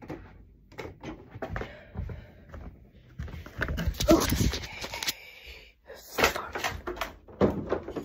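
Knocks, bumps and rustling of a phone camera being picked up and handled, with the densest, loudest clatter about four seconds in.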